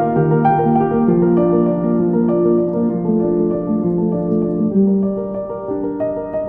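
Background piano music: a calm melody of held notes over a repeating lower figure.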